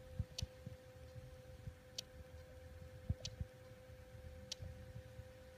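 Faint, sharp ticks about every second and a half over a steady faint hum, in a truck cab with the ignition on and the engine not running, plus a few soft low thumps.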